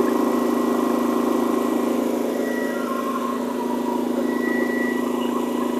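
DuroMax XP16000iH dual-fuel inverter generator running steadily under a heavy load of about 8 kilowatts, making an even engine hum with a strong steady tone.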